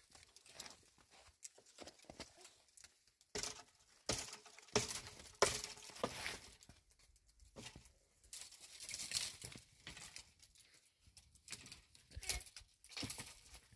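Irregular rustling and crinkling noises in uneven bursts, loudest about four to six seconds in.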